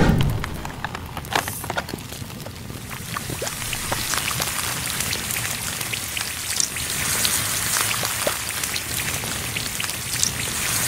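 Steady sizzling hiss with many small crackles and pops as a white heart-shaped solid melts and drips, after a low thump right at the start.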